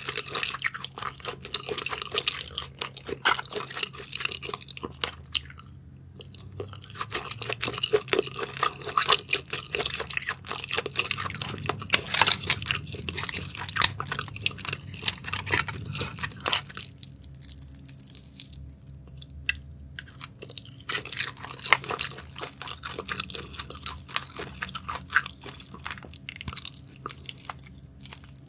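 Someone eating spicy sauced shellfish: wet chewing with many sharp clicks throughout, thinning out for a few seconds past the middle.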